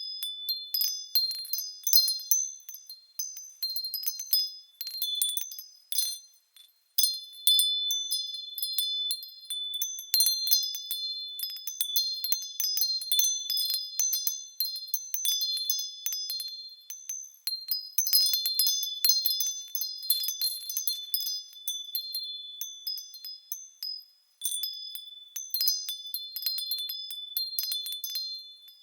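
Wind chimes tinkling in a breeze: many high ringing tones struck irregularly and overlapping, twice thinning out to a brief lull.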